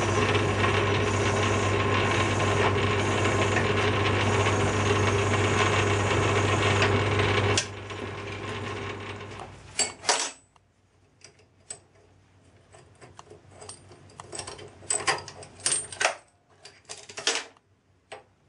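Metal lathe running as a tailstock drill works into the centre of a spinning flywheel, with a steady motor hum; about seven and a half seconds in the lathe is switched off and spins down. After that come scattered sharp metallic clicks and clatters as clamp nuts and bolts are undone and the flywheel is taken off its fixture plate.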